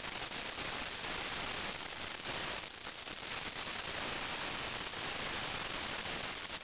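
Steady static hiss with no distinct event, dipping briefly about two and a half seconds in.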